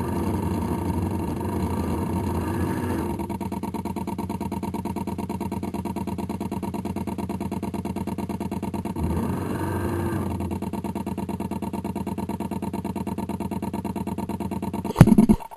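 Small combustion engine of a radio-controlled model boat running steadily, louder for the first few seconds and again briefly about nine seconds in as its pitch swings. A couple of sharp knocks near the end.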